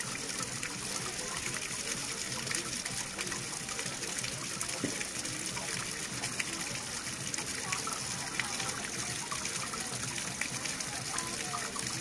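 Continuous running water, a steady gushing and trickling with small gurgles and splashes scattered through it.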